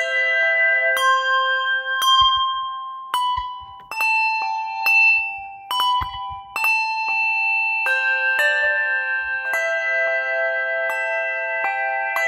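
Handbells playing a tune: clear struck bell notes, often two or three sounding together, each ringing on and overlapping the next as a new note comes in about every half second to second.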